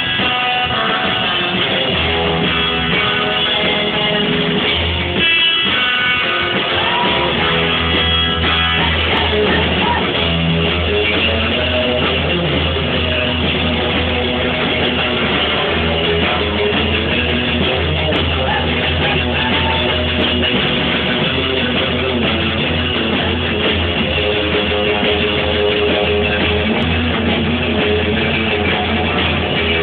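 Live rock'n'roll band playing, guitar to the fore over a steady bass line; the bass drops out briefly about five seconds in.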